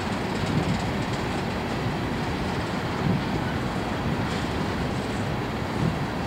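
Empty steel coal hopper cars of a freight train rolling past: a steady rumble of wheels on rail, with three louder clacks about two and a half seconds apart.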